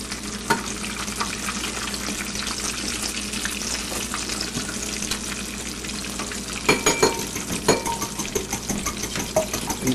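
Egg-and-breadcrumb-coated eggplant slices frying in a skillet of hot oil: a steady crackling sizzle, with a few sharp clicks about seven seconds in.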